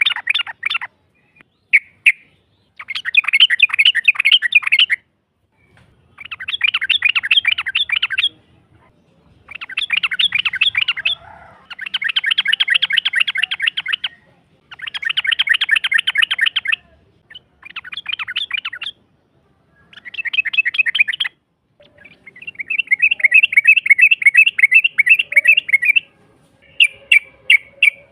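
Yellow-vented bulbul (trucukan) giving long, rapid chattering trills, the 'ropel' song, in bursts of about two seconds separated by short pauses, about ten in all.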